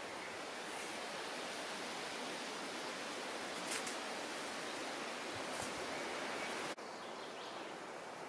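Steady woodland ambience: an even outdoor hiss with no clear single source, with a couple of faint, brief high-pitched sounds midway. The hiss drops slightly and abruptly about two-thirds of the way through.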